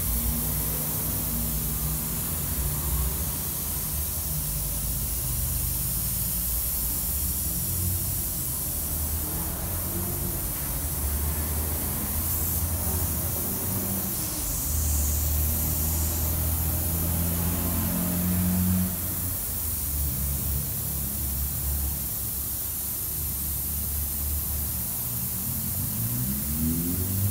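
A 2 HP twin-piston air compressor running steadily, with a high hiss of air, while it fills the pneumatic foam tank with air.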